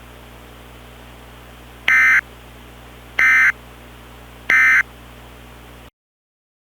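Three short bursts of EAS SAME data tones, the end-of-message (NNNN) code that closes an alert, about 1.3 s apart over a steady hiss and hum. The audio cuts off to dead silence near the end.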